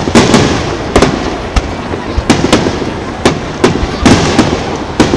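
Aerial firework shells bursting in quick succession: about a dozen sharp bangs at irregular intervals, some overlapping, each trailing off briefly.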